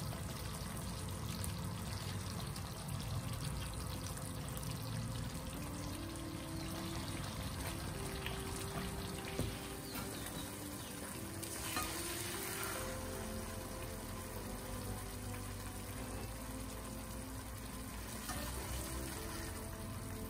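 Soft background music with held melodic notes over a steady hiss, and a single knock about nine seconds in.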